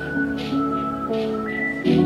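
Background music: a whistled tune over sustained organ-like chords that change every half second or so, with a light regular beat.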